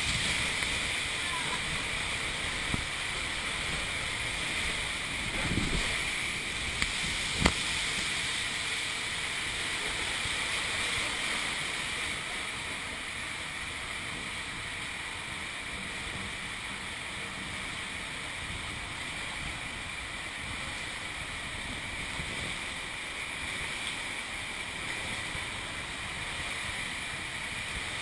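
Steady rush of water and spray as a tube rider slides down an enclosed water slide, with a few sharp knocks of the tube against the slide in the first eight seconds.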